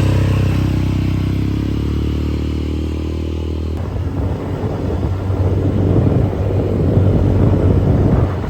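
A motor vehicle's engine running steadily, then a rougher, louder rumble from about four seconds in as the vehicle gets going.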